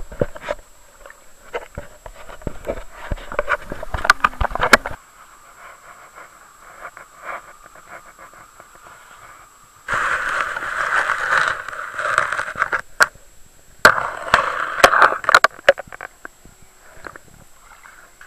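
Water noise picked up by an underwater camera: scattered clicks and knocks, with two longer rushing, bubbling bursts about two-thirds of the way through.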